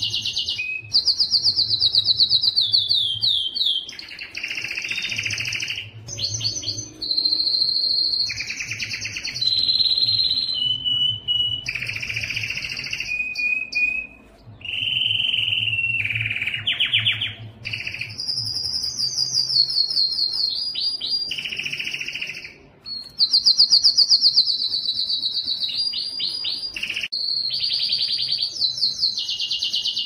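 Domestic canary singing a long, almost unbroken song: rapid trills and rolls, many falling in pitch, switching from one phrase to the next every second or two with hardly a pause.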